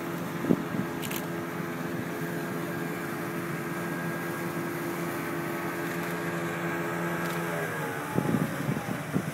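Motorized canoe's outboard motor running at a steady pitch, then dropping in pitch as it is throttled back about eight seconds in, followed by a few low thumps.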